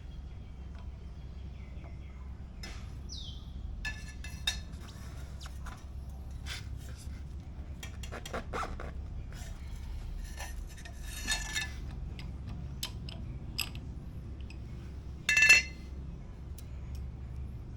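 Metal tools and parts clinking and rattling as they are handled during motorcycle brake work, with scattered clicks and a sharp, ringing metallic clank about two-thirds of the way through, over a steady low hum.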